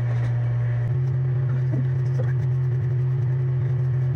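A steady low hum at an even level, with a fainter higher tone joining about a second in.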